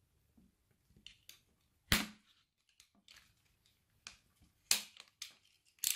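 Utility knife cutting the nozzle off a plastic syringe against a wooden board: several sharp cracks and clicks, the loudest about two seconds in.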